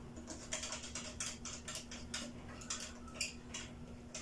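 Screwdriver turning a terminal screw on a plastic single light switch while a wire is fastened: a run of light clicks and scrapes, about three or four a second.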